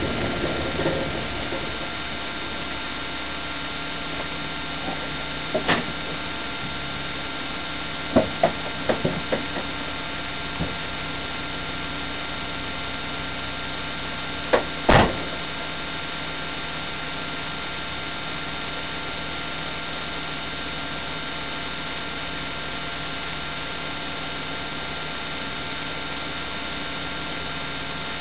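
Steady electrical hum with a constant whine, broken by scattered short knocks and clicks; the loudest is a double knock about fifteen seconds in.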